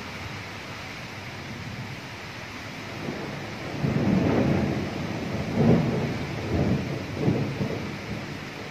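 Thunder rumbling, starting about a third of the way in and rolling through several surges, over a steady hiss of rain.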